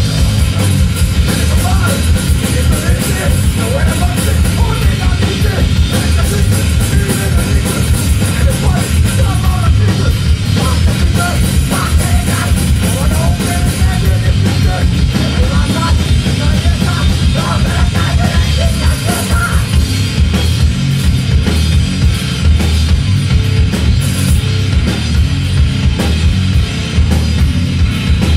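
A punk rock band playing live: drum kit, electric bass and distorted electric guitar, loud and driving without a break.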